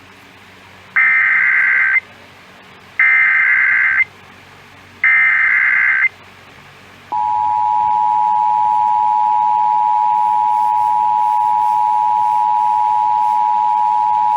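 Emergency Alert System activation tones for a tornado warning: three one-second bursts of SAME header data, warbling between two pitches, about a second apart. About seven seconds in, the steady two-tone EAS attention signal (853 and 960 Hz together) begins and continues.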